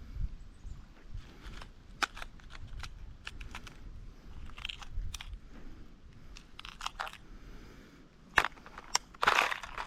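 Irregular small clicks and crunchy rustling, as of gear being handled close to the microphone. There is a sharper click a little past eight seconds and a louder rustle about a second later.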